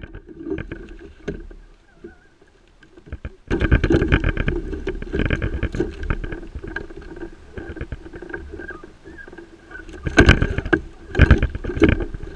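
Water splashing and slapping against a plastic kayak hull on choppy water, suddenly louder about three and a half seconds in, with several sharp knocks of gear against the hull near the end.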